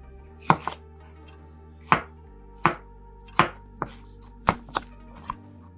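Chef's knife cutting green bell pepper on a wooden cutting board: about eight sharp knife strikes against the board at uneven intervals.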